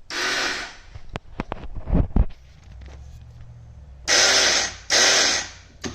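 2008 Honda TRX450R's electric starter pressed three times in short bursts of about half a second each, whirring without the engine starting, with a few clunks between. The owner puts this down to a failed starter clutch or a failed reduction gear that drives it.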